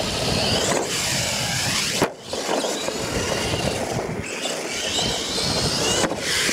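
Radio-controlled monster truck motor whining up and down in pitch as it speeds up and slows, over the crunch and scrape of its tires on dirt. The sound breaks off abruptly about two seconds in and again near the end, where the clips change.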